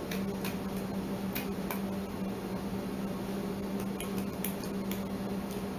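Scissors trimming excess upholstery fabric in little bits: scattered short, crisp snips, over a steady low hum.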